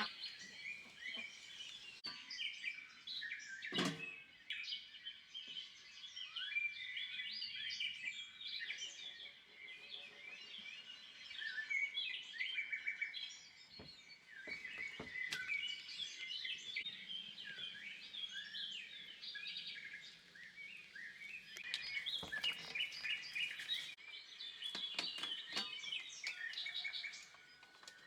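Many songbirds chirping and singing together in a dense, overlapping chorus. A sharp knock sounds about four seconds in, and there are scattered clicks and taps later on.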